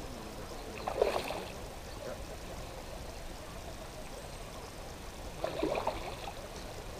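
Water splashing twice at the pond's surface, a sharp splash about a second in and a second one around five and a half to six seconds, over a steady hiss.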